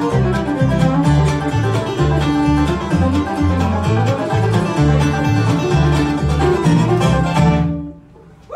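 Live bluegrass band playing an instrumental passage on banjo, fiddle, acoustic guitar, mandolin and upright bass, with a steady bass line under it. The band stops together on a final note near the end.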